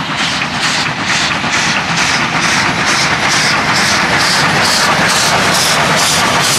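Beyer-Garratt steam locomotive hauling a long freight train, its exhaust beating in rapid, even chuffs of about five a second, getting a little louder as it comes past.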